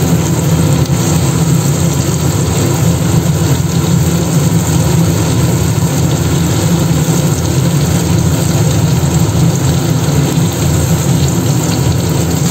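Steady low hum with an even hiss over it, as onions, tomatoes and ginger-garlic paste fry in a kadai.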